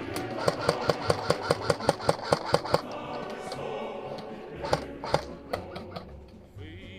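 Airsoft guns firing: a quick run of about a dozen sharp shots, roughly five a second, for about two seconds, then a few scattered shots a couple of seconds later.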